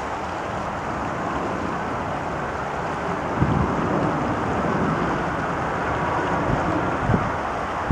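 Jet airliner climbing after takeoff: a steady rumble of its engines. Wind is buffeting the microphone, with gusts about three and a half seconds in and again near the end.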